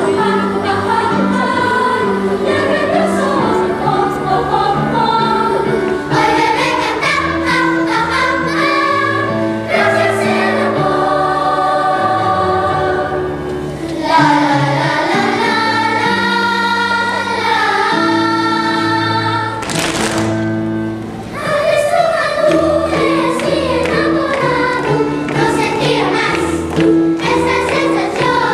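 Children's choir singing together over instrumental accompaniment with held bass notes.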